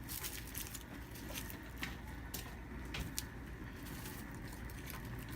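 Halved garlic heads being tossed into a pot of seasoned water: a few faint, irregular ticks and light pats over a low steady hum.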